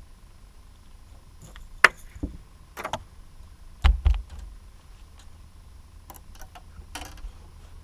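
Scattered clicks and knocks of fishing tackle being handled on a bass boat's deck, with two heavier low thumps about four seconds in.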